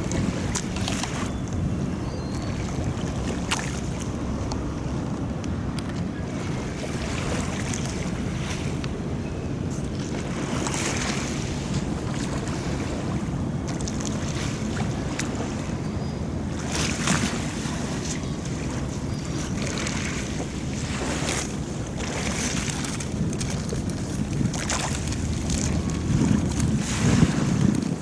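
Harbour water lapping and splashing against the quay in irregular washes every second or two, over a steady low rumble. Wind buffets the microphone near the end.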